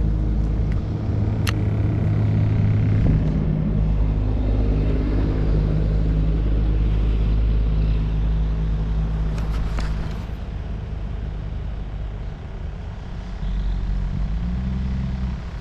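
A vehicle engine running with a steady low hum, its pitch shifting near the end, and a single sharp click about a second and a half in.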